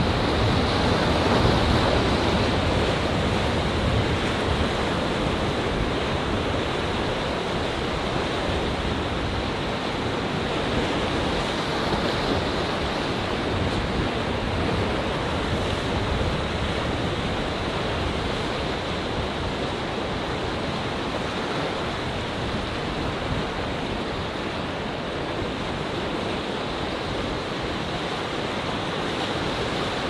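Rough Atlantic waves surging and washing among coastal rocks: a continuous rush of surf, a little louder a second or two in and easing slightly over the second half.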